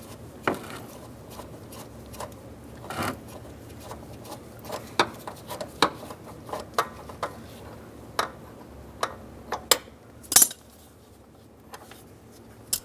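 Scattered metallic clicks and clinks of a socket ratchet and extension working a door hinge bolt loose, with a couple of sharper clanks about ten seconds in.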